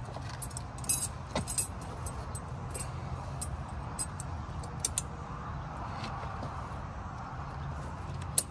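Steel tire chain clinking and rattling as it is handled by hand on a semi-truck's drive tire while being fitted and fastened, with a cluster of sharp clinks about a second in, scattered clinks later and a sharp one near the end. A steady low rumble runs underneath.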